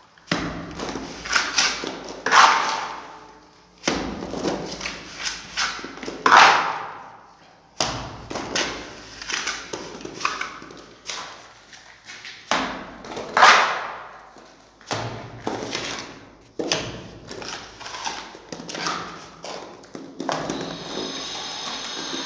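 A trowel pressing and scraping wet cement mortar into the wall around a metal electrical box: repeated sharp scrapes and slaps at irregular intervals.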